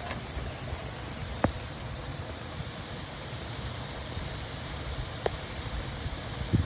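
Steady rain falling, a dense even patter with a low rumble underneath. Three sharper single taps stand out, about a second and a half in, about five seconds in, and just before the end.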